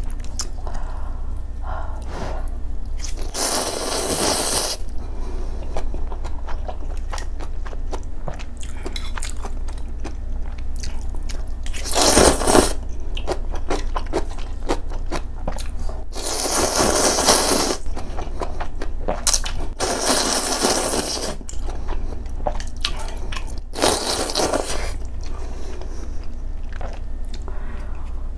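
Close-miked eating of spicy ramen noodles with soft tofu: chewing and small wet clicks throughout, broken by about five long slurps of noodles.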